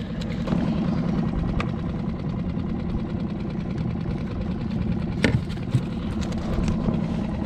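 A small boat's outboard motor idling steadily, with a couple of short sharp knocks from handling on the deck, about a second and a half in and again near five seconds.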